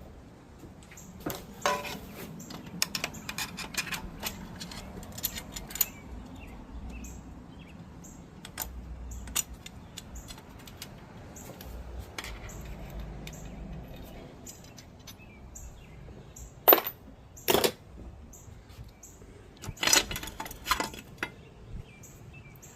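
Metal parts of a 727 automatic transmission clinking and clanking as it is taken apart. There are scattered light clicks early, then two sharp, loud metal knocks about seventeen seconds in, and a short burst of clatter a few seconds later.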